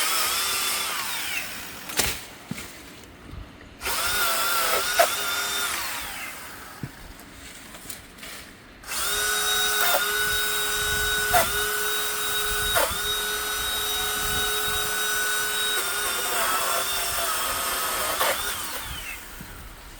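EGO PS1000 56-volt cordless pole saw cutting mulberry branches, its electric motor and chain running in three bursts with a steady high whine that winds down each time the trigger is let off. The longest run is about nine seconds, and a few sharp knocks come between and during the runs.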